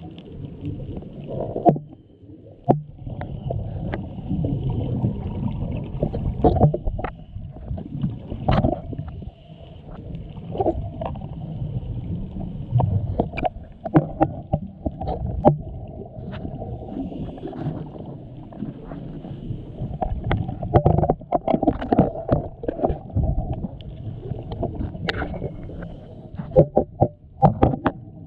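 Muffled underwater sound heard through a camera's waterproof housing. A scuba diver breathes through a regulator, with a rumble of exhaled bubbles swelling and fading every few seconds. Sharp clicks and knocks are scattered throughout.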